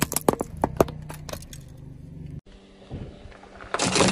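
Plastic sunglasses cracking and snapping under a car tyre, a quick run of sharp cracks over the first second and a half. Near the end comes a loud burst of crunching and crackling as the tyre rolls over plastic toy tiaras.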